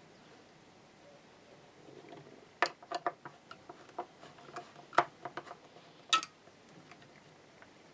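Scattered sharp clicks and light knocks of small hardware and tools being handled while a Fender Stratocaster is taken apart. They come in a cluster from about two and a half to six seconds in.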